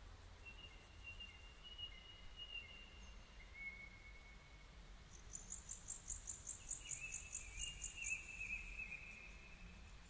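Faint birdsong: thin drawn-out whistled notes, and about halfway through a fast series of high chirps, about four a second, lasting some three seconds.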